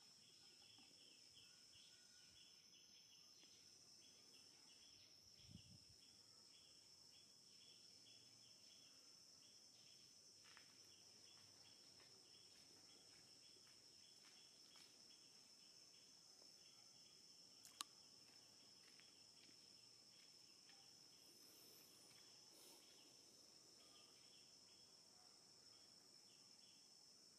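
Near silence: faint steady insect buzz with a rapid chirping pulse, and one sharp click about two-thirds of the way through.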